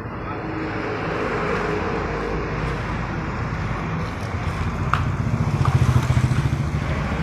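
Diesel engine of a Massey Ferguson backhoe loader running. It grows louder over the first second and louder again, with a pulsing beat, around five to six seconds in. A single sharp clank comes about five seconds in.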